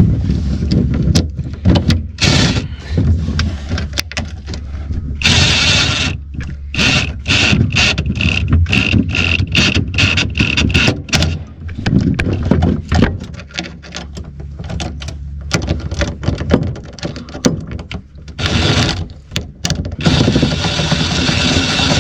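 Hand tools clicking and knocking as hose clamps are fitted and tightened on rubber fuel lines, over a steady low hum, with a rapid high-pitched chattering for a few seconds near the middle.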